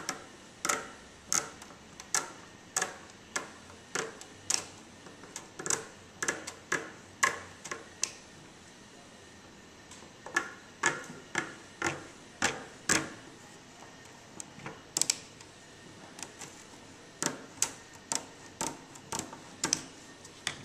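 Scissors snipping through plastic mesh netting: a long string of sharp cuts, about one or two a second, with a pause of about two seconds near the middle.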